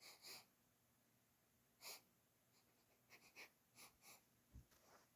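Near silence: room tone, with a few faint brief clicks.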